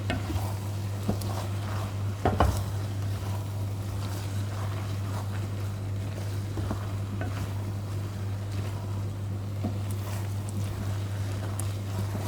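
Soup ingredients cooking in a pot on the stove: faint sizzling under a steady low hum, with a utensil knock on the pot about two seconds in and a few light ticks.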